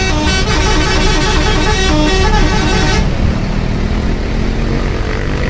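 A bus's telolet horn, a multi-tone musical air horn, playing a quick tune of stepped notes that cuts off suddenly about three seconds in, leaving steady engine and road noise.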